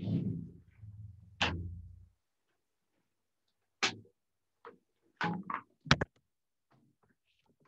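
A series of knocks and clunks, as of things being handled or set down close to the microphone: a short low rumble at the start, then about five sharp knocks over the next few seconds, the loudest near the end.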